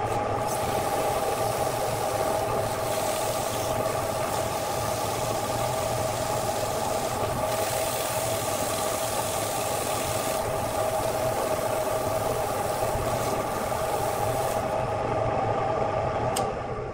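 An electric wood lathe runs steadily with a hum and whine while sandpaper held against the spinning wooden bowl gives a rushing hiss. Near the end there is a click, and the sound falls away as the lathe stops.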